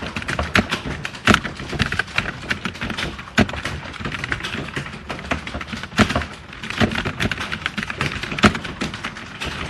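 Fast typing on a computer keyboard: rapid, irregular key clicks, several a second, with now and then a louder stroke.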